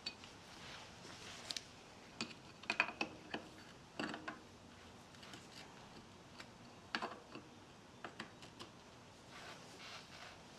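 Irregular metallic clicks and taps from tools and fork parts being handled while the cartridge is worked into a bicycle suspension fork, with a cluster of sharper clicks a few seconds in and again past the middle.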